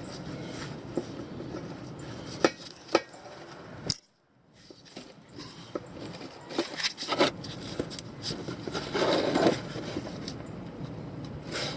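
Handling noises: scattered light knocks and rubbing, with two sharper knocks about two and a half and three seconds in. The sound cuts out completely for about half a second around four seconds in, then more clicks follow, and there is a short rustling rub near nine seconds.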